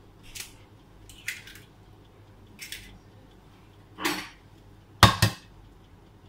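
Raw eggs tapped and cracked on the edge of a glass mixing bowl: scattered light clicks and shell crunches, with two sharp knocks close together about five seconds in.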